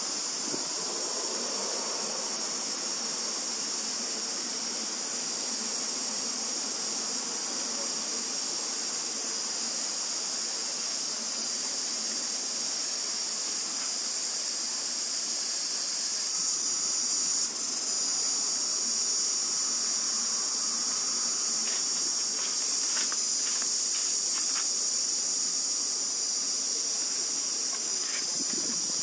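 Steady, high-pitched insect chorus, unbroken throughout, with a few faint clicks in the second half.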